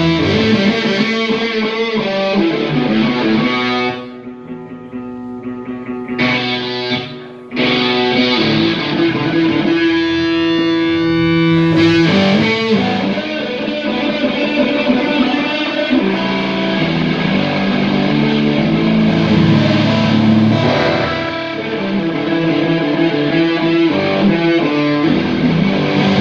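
An electric guitar played on its own through an amplifier and effects pedals, holding sustained chords and notes. It drops quieter for a few seconds about four seconds in, then comes back at full level.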